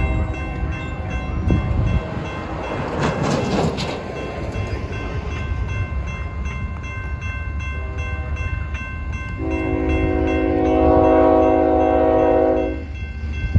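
Approaching diesel locomotive's multi-note air horn sounding for the crossing: a fainter blast fading about 2 s in, a short one around 8 s, then a long, louder blast from about 9.5 s that cuts off near the end. Grade-crossing warning bell dinging steadily underneath, with a brief rush of noise about 3 s in.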